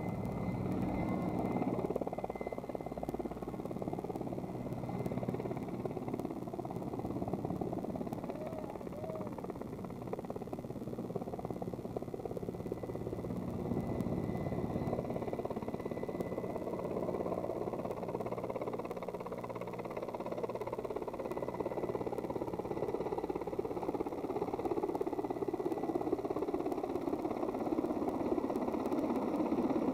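Mil Mi-8/Mi-17-type transport helicopter flying overhead, a steady rotor and turbine noise that grows louder near the end as it comes in low and close.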